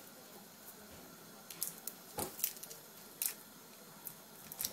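Scattered light clicks and knocks of chopped vegetable pieces dropping into a plastic food-processor jar, the loudest a little past halfway.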